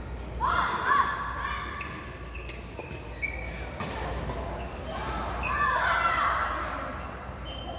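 Athletic shoes squeaking on a badminton court's mat during a rally. There are short high squeals throughout, with two longer rising bursts, one near the start and one about five to six seconds in, and a single sharp tap a little over three seconds in.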